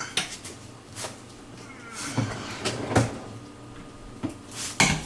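Freezer drawer parts and brackets being handled, with a series of irregular hard knocks and clatters.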